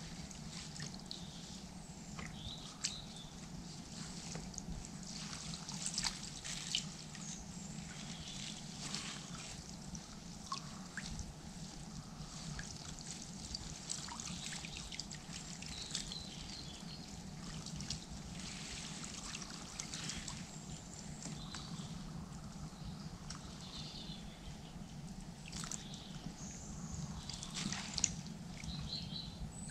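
Water trickling and dripping from a wet mesh keepnet as it is lifted and handled in a shallow river, with small irregular splashes over a steady low background.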